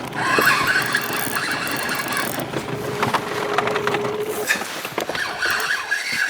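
A boat motor running steadily while trolling, with a high squealing from a fishing reel paying out line as a pike takes the lure.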